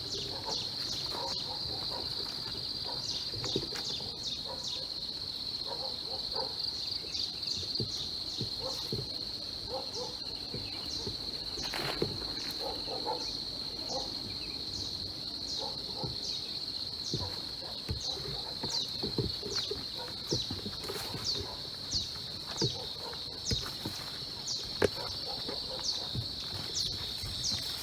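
Farmyard ambience: a steady high-pitched insect drone with short high chirps repeating about once or twice a second, and scattered soft pig grunts and squeaks with an occasional knock.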